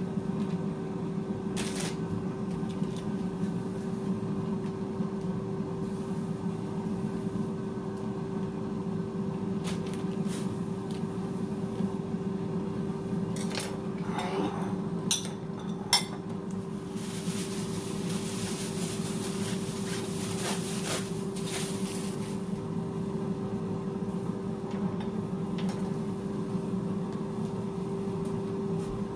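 Air fryer running with a steady hum. A few clinks of a metal spoon against a glass bowl come about halfway through, and a hiss lasting some five seconds follows soon after.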